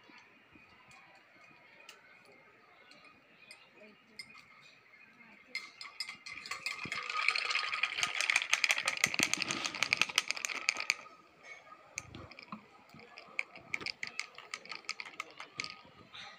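Water poured from a plastic bottle into a tall glass of ice, splashing with a rattle of the cubes for about five seconds, starting about five seconds in. Scattered light clicks before and after the pour.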